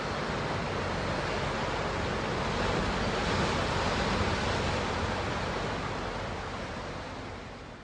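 Ocean surf making a steady rushing wash that swells a little midway and fades near the end.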